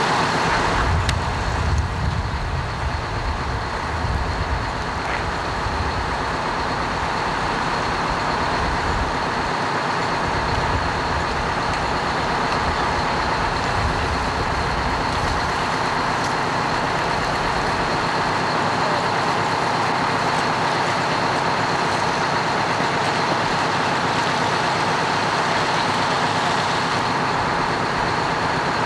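Fire trucks' engines running steadily, a continuous rumble that is heavier in the low end through the first half and then evens out.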